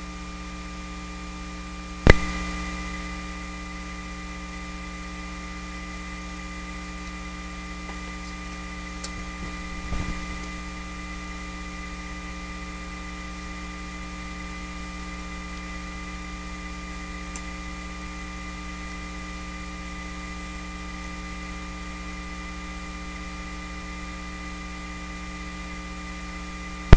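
Eurorack modular system's output carrying a steady mains hum, with buzzing overtones and a thin high whine on top: power-supply noise from the switching adapter feeding the powered bus board. A loud pop about two seconds in and a softer thump about ten seconds in as modules are plugged back in.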